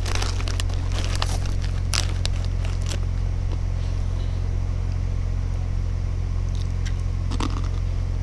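A steady low mechanical hum runs throughout, with scattered crackles and rustles from the camera being handled as it moves through debris, mostly in the first three seconds and again about seven seconds in.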